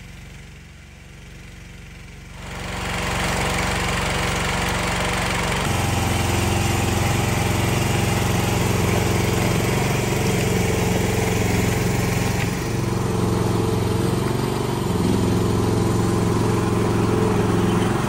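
A mini skid steer's 13-horsepower engine runs steadily near idle, powering the hydraulics of a log splitter attachment. It gets louder about two and a half seconds in, grows heavier again a few seconds later, then holds steady.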